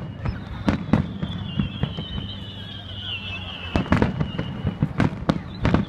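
Aerial fireworks shells bursting in quick succession: a rapid, irregular series of sharp bangs, bunched most thickly about four seconds in and again near the end.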